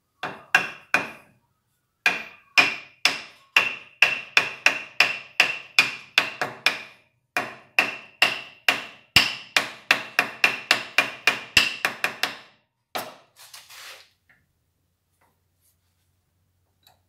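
Rapid repeated hammer taps driving a metal ferrule (splitter ring) onto the end of a wooden file handle, about three blows a second, each with a short metallic ring. The taps stop about twelve seconds in, followed by a few softer knocks.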